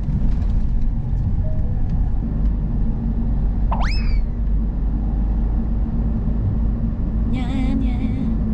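Steady car-cabin road and engine rumble under light background music. About four seconds in, a quick rising whistle sound effect, and near the end a short warbling sound.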